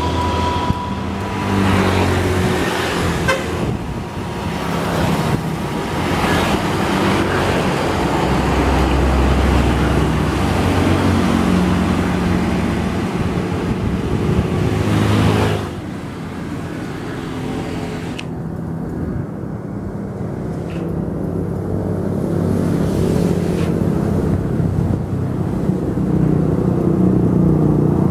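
Road traffic passing, with buses among it and a vehicle horn sounding.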